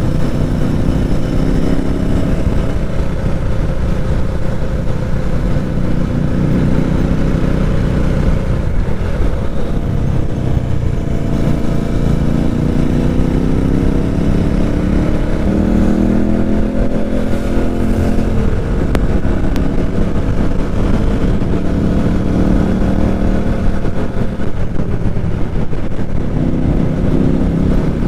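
Motorcycle engine and exhaust under way, the revs climbing and dropping several times as it accelerates and changes gear, over a steady low road and wind rumble.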